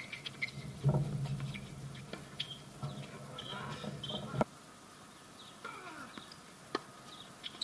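Tennis rackets striking the ball: a few sharp pops several seconds apart, over outdoor court ambience with a low hum that cuts off abruptly about halfway and faint bird chirps.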